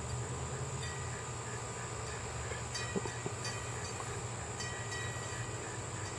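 Steady outdoor ambience: a continuous high-pitched drone of crickets over a low steady rumble.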